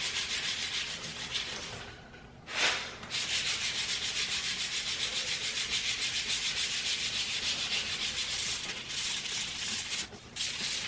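Sandpaper worked back and forth by hand over spot putty filling curb rash on an aluminum wheel rim, shaping the filler. The strokes come quickly and evenly, about four or five a second, with a brief pause about two seconds in and another near the end.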